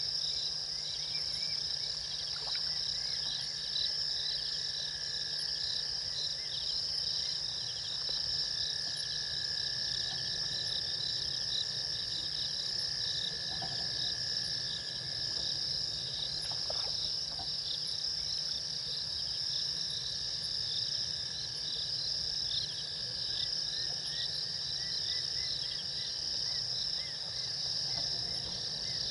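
Dense, steady night-time chorus of crickets and other insects trilling, high-pitched and unbroken, with one steadier insect tone below it and a faint low hum underneath.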